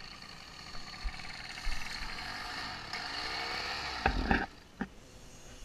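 Small dirt bike engine running, heard from the rider's helmet camera. About three seconds in it revs up, then come a few loud knocks, and the engine drops lower and quieter.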